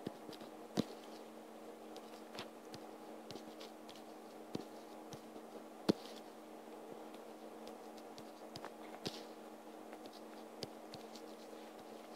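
Light taps and clicks at irregular intervals on a tablet touchscreen while writing by hand, over a steady electrical hum.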